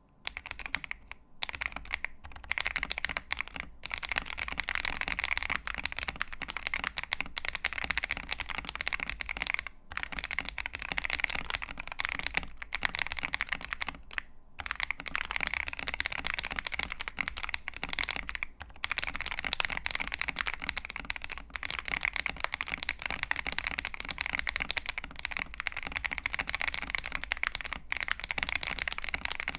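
Fast continuous typing on a Feker IK75 Pro mechanical keyboard with lubed Akko CS Lavender Purple tactile switches, polycarbonate plate and PBT keycaps, with a few brief pauses.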